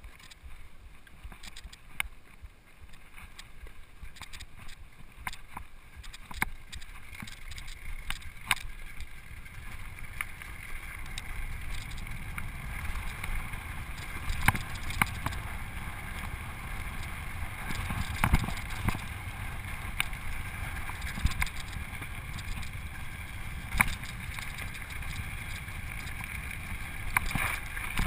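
Mountain bike descending a gravel road at speed: wind rushing over the camera microphone and tyres rolling over loose gravel, with sharp rattles and clacks from the bike over bumps. The rush grows louder from about ten seconds in.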